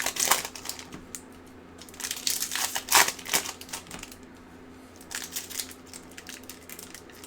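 Trading-card pack wrappers and cards being handled, crinkling and rustling in irregular bursts.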